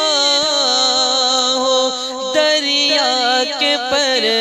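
A man singing an Urdu naat into a microphone: a slow, ornamented melody of long held notes that waver and bend, stepping down in pitch near the end.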